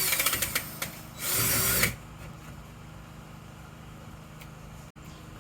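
Power drill boring with a small bit in two short bursts within the first two seconds: the first rattly and uneven, the second a steady run of under a second. The drilling is perforating the outline of a vent opening so the piece can be knocked out.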